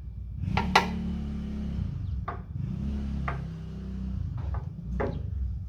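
Light hammer taps on the steel rear quarter panel of a Ford Escort Mk2, about six single knocks spread out, the loudest just under a second in. The knocks come while a dent is being worked out and a high spot knocked down.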